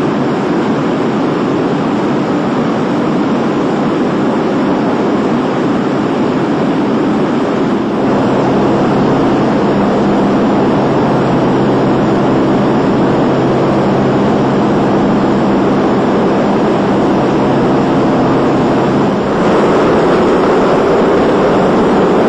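Propeller-driven bombers in flight, heard as a steady drone of piston engines with rushing air. About eight seconds in, a steady hum comes in and the drone gets a little louder. Near the end it steps up again and sounds fuller.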